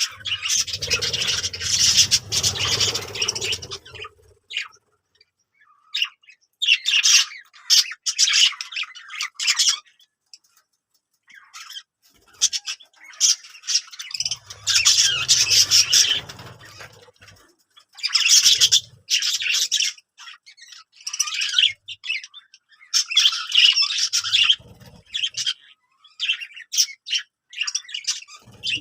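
Budgerigars chattering and squawking in irregular bursts of scratchy warbling, broken by short pauses, with a low rumble underneath at the start and again about halfway through.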